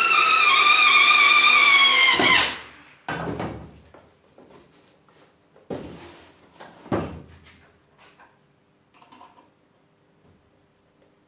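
Homemade disc sander driven by a washing-machine motor, running with a loud whine that sags slightly in pitch and stops abruptly about two seconds in. Several sharp knocks follow, fading toward the end.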